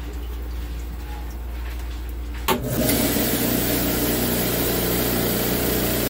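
Low hum, then a click about two and a half seconds in as a rock slab saw is switched on; its motor and blade start and run steadily, with a wet hiss from the coolant on the spinning blade.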